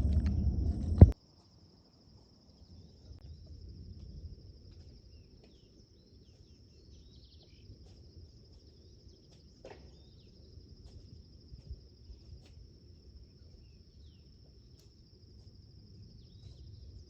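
A steady high-pitched insect trill, typical of crickets, with a few faint bird chirps over quiet outdoor background noise. In the first second a loud low rumble cuts off abruptly with a sharp click.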